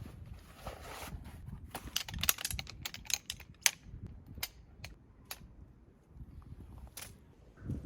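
A series of sharp, irregular clicks and snaps, about a dozen, most of them in the middle few seconds and one more near the end.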